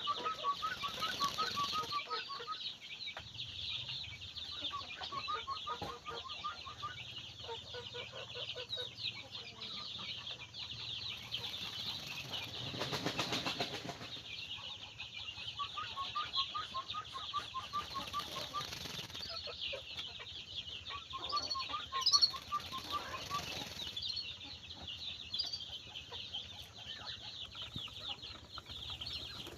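Small birds chirping densely and without a break, with runs of quick, lower bubbly notes now and then, typical of a yellow-vented bulbul (trucukan). There is a brief louder rush of noise about 13 seconds in.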